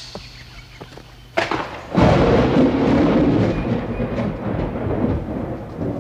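Thunder: a sharp crack about a second and a half in, followed from about two seconds on by a loud, long rumble.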